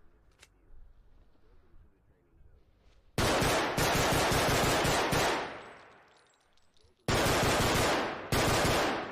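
Glock 17 pistol sound effect: several bursts of rapid, very loud gunfire, starting about three seconds in, each fading with a short echo.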